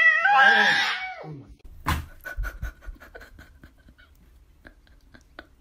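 A cat's drawn-out meow, its pitch rising and then falling, lasting about a second. Then a sharp click, followed by faint, light ticks a few times a second.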